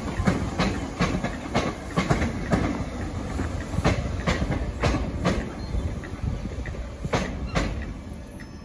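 Electric multiple unit train's wheels clacking over points and rail joints as it moves through the station, irregular knocks over a steady rumble, fading near the end.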